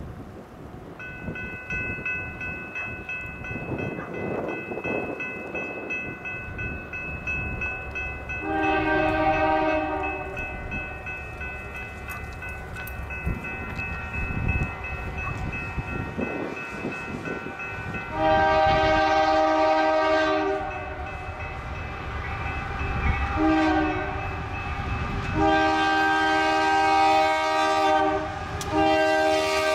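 Union Pacific freight locomotive's air horn sounding for a grade crossing: a long blast, a second long blast, a short one, then a long one, with another starting near the end, over the rumble of the approaching train.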